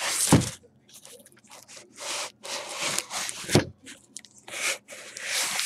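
A cardboard shipping case being turned, tipped and slid on a tabletop: irregular rubbing and scraping of cardboard, with three dull thumps, just after the start, about three and a half seconds in, and at the end, as the box is set down.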